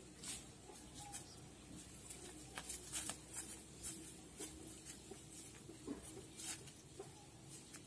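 Faint, irregular crackling and rustling of footsteps on dry bamboo leaves and twigs, a few light crunches at a time.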